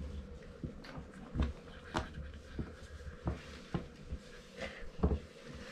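Irregular soft knocks and scratchy rustles of kittens clambering over a person's lap, their paws and claws catching on cloth trousers close to the microphone.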